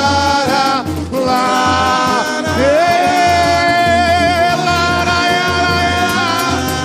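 Samba-enredo sung live by the samba school's lead singer over the bateria, the deep surdo drums keeping a steady beat; about two and a half seconds in, the voice holds one long sustained note.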